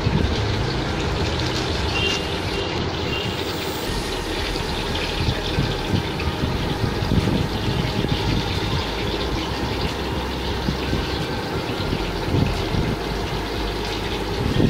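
Steady low mechanical-sounding background noise, like a fan or motor running, with faint light crunches as a knife cuts through a crisp deep-fried spring roll near the start.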